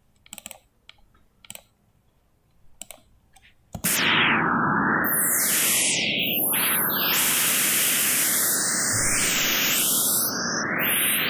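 A few faint clicks, then about four seconds in a loud steady hiss of generated noise starts. Frequency regions have been cut out of it by hand in spectral editing, so its tone shifts and sweeps as the gaps move, giving it a science-fiction sound.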